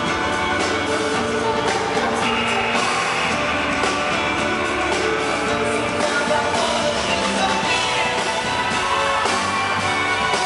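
Live indie pop band playing a song, with a male lead vocal over keyboards and electric guitar.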